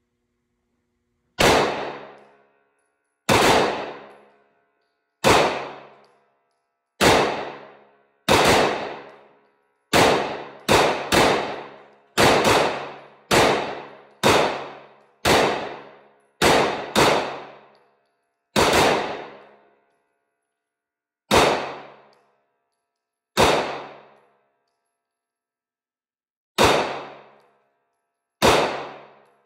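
Rex Zero 1 9mm pistol firing a long string of about twenty shots at an uneven pace, sometimes two in quick succession, each shot ringing out for about a second.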